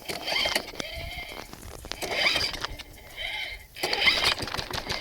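Recoil starter of a 185 cc Tecumseh lawn mower engine being pulled about four times in a row, each pull a short whir of the rope and pulley, with the engine not yet catching. The engine is one that takes a few pulls to start.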